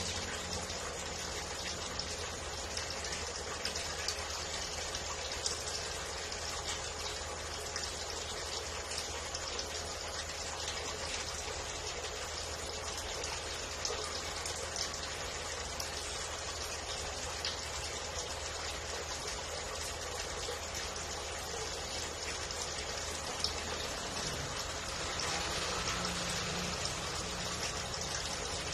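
Aquarium filter water splashing and trickling steadily into the tank, with a faint steady electrical hum from the equipment underneath.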